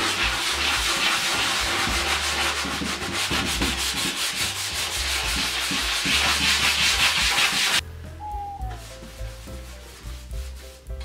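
Sanding sponge rubbed briskly back and forth over a painted wooden chair seat, in rapid strokes, stopping suddenly about eight seconds in. Background music plays underneath and carries on after the sanding stops.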